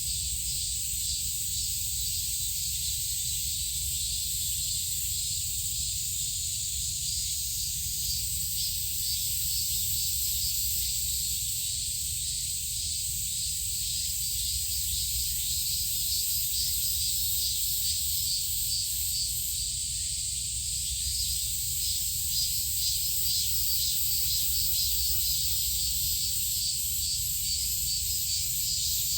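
Summer insect chorus, cicadas: a shrill, rapidly pulsing drone that goes on steadily, over a low rumble.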